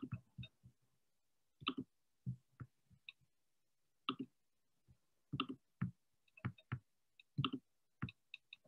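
Faint, irregular clicking on a computer: about a dozen short clicks, single or in quick pairs and clusters, with short quiet gaps between them.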